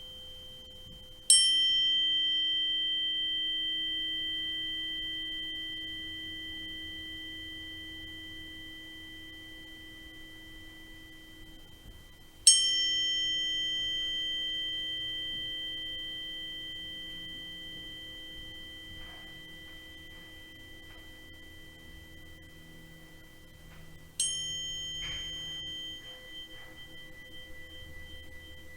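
A metal sound-healing chime struck three times, about eleven seconds apart. Each strike starts with a bright ping and rings on in clear, steady tones that fade away slowly.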